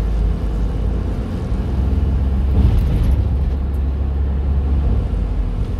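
Steady road and engine rumble of a moving car heard from inside the cabin, swelling slightly about halfway through.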